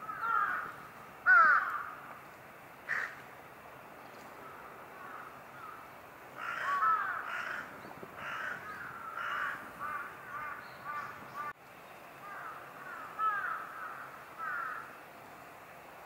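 Brown-eared bulbuls calling in short, repeated squawks. The loudest comes about a second in, then a run of calls follows from about six to eleven seconds in, and a few more come near the end.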